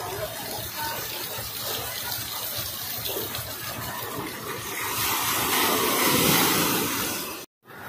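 Water pouring and splashing from a water-park play structure into a shallow pool, getting louder about five seconds in. It cuts off abruptly near the end.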